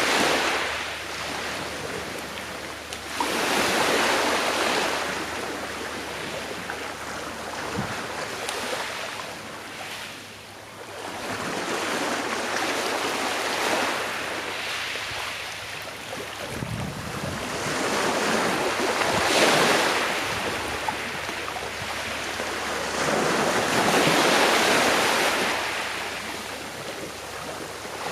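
Sea waves breaking and washing onto a shore, each one swelling and fading, about every four to five seconds.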